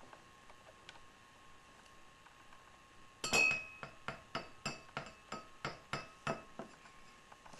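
A utensil tapping and clinking against drinking glasses, about three ringing taps a second, starting about three seconds in, as the butterbeer mixture is portioned into the glasses.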